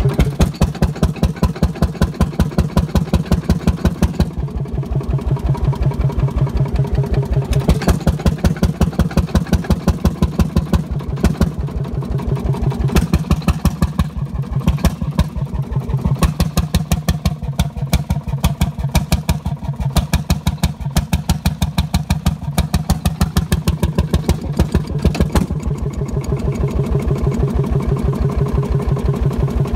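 25 hp Fairbanks diesel stationary engine running on its own after more than 40 years out of service, with a fast, even beat of firing strokes that swells and eases a little. A few sharper knocks stand out over the beat.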